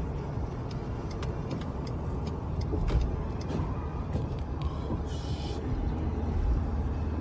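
Car interior road and engine noise while driving: a steady low rumble, with a few faint clicks and a short hiss about five seconds in.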